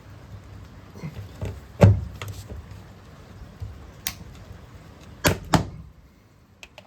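Sharp metallic knocks and clicks from work on a replacement rivet in an aluminium john boat hull. The loudest knock comes about two seconds in, and a quick pair comes near the end.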